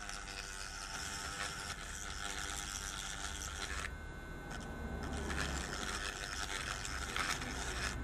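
Small handheld rotary tool (hand router) running steadily, its 0.8 mm drill bit grinding to widen a hole in the plastic base of a disposable turbo lighter. The grinding drops out briefly about four seconds in as the bit is lifted off, then carries on.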